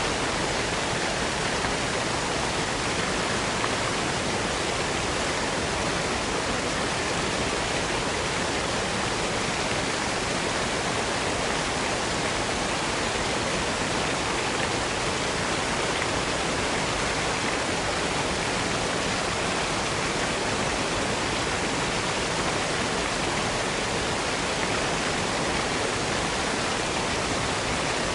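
Waterfall: a steady, even rush of falling water, unchanging in level.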